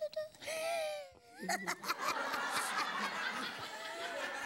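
Sitcom studio audience laughter, setting in about a second and a half in and carrying on as a dense crowd of laughs. It follows a short, drawn-out vocal sound that slides in pitch.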